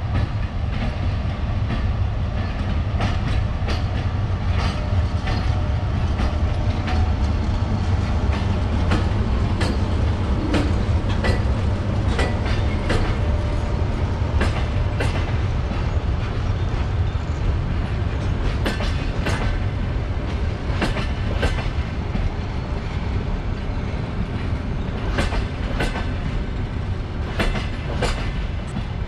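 Electric-hauled passenger train rolling slowly past: a steady low rumble with the wheels clacking over rail joints in irregular clusters of sharp clicks.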